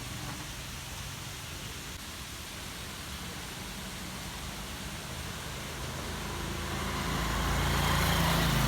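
Waterfall: falling water making a steady rushing noise that swells louder near the end.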